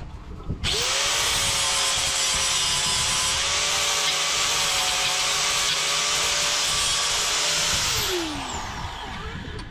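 Electric angle grinder with an abrasive disc switched on under a second in, spinning up with a quick rising whine and grinding and sanding rust off a small steel part clamped in a vise with a steady hiss. About eight seconds in it is switched off and winds down with a falling whine.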